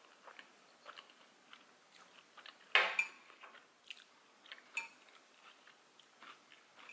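Close-up eating of sushi rolls: faint chewing and small mouth sounds, with metal chopsticks clicking against the dishes twice, sharply about three seconds in and again near five seconds with a brief ring.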